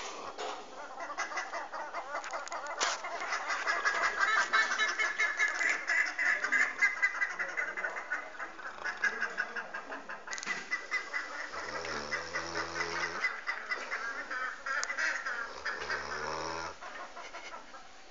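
Saint Bernard dog snoring in its sleep: long, rapidly fluttering, rattling snores, with two deeper, lower snores in the second half.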